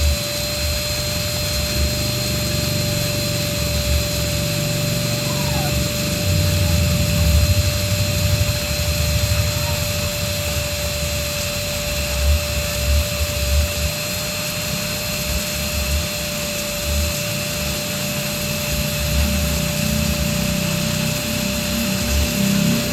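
Electric balloon air pump running steadily: a continuous whirring hum with a constant high whine, blowing air into a balloon.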